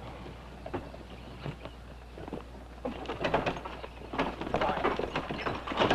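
Horse-drawn wagon on the move, with hoofbeats and wheels rattling; the clatter grows louder and denser about three seconds in.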